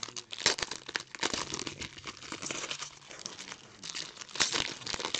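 Foil wrapper of a 2019 Panini Contenders football card pack crinkling and tearing as it is pulled open by hand, an irregular run of crackles with louder rips about half a second in and again near the end.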